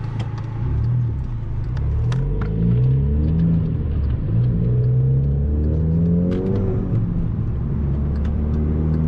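Car engine accelerating from a turn, heard from inside the cabin: its note climbs, drops at two upshifts, then runs steadily at cruising speed.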